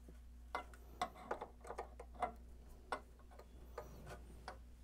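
Pliers tapping and prying at a small C-clip on a radio's brass tuning shaft: faint, irregular light metallic ticks, some in quick succession and others about a second apart, as the clip is worked loose.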